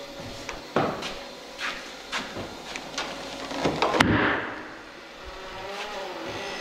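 Irregular knocks and clatter of tools and parts being handled, with a sharp click about four seconds in followed by a brief rushing noise.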